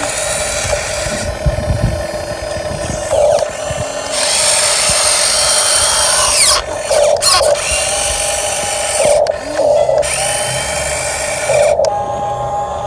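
Small electric motors of a Huina 1550 RC model excavator whining as it works, the pitch rising and falling as the motors speed up and slow down. The sound breaks off and restarts abruptly several times.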